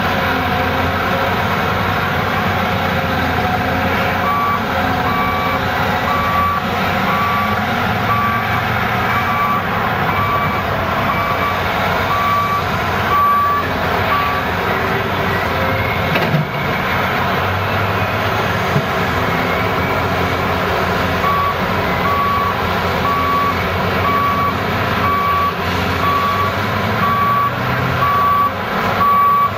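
Diesel engine and hydraulics of a CAT 375 excavator running under load as it digs and loads a dump truck, with the engines of the trucks around it. Over this, a truck's reversing alarm beeps about once a second for a stretch of about ten seconds, stops, and starts again in the last several seconds.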